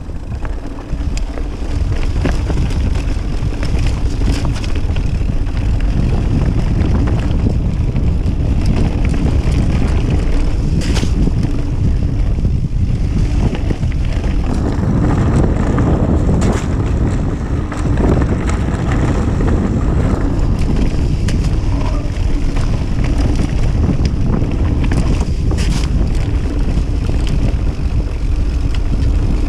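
Wind buffeting the microphone of a GoPro Hero 5 Session on a Kona Process 153 mountain bike riding down a stony gravel trail, over a steady rumble of tyres on loose stone. A few sharp clicks and rattles from the bike stand out now and then.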